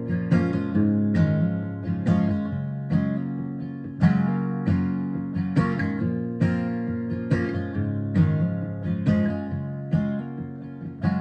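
Acoustic guitar playing the instrumental intro of a song, chords struck in a steady rhythm of a little more than one stroke a second, with lighter strokes in between.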